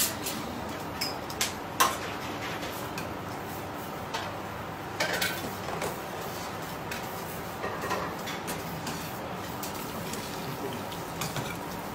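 Scattered light clinks and scrapes of a utensil against a metal platter as a grilled sea bream is pulled apart on it, over steady room noise.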